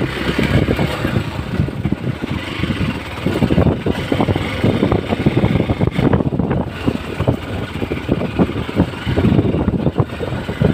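Hero XPulse 200's single-cylinder engine running as the motorcycle is ridden over rough off-road ground, mixed with many irregular knocks.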